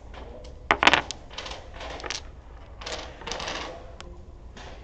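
Dominoes clacking on a wooden table as tiles are played and a trick is gathered. A quick cluster of sharp clacks about a second in is the loudest, followed by scattered lighter clicks and tiles sliding.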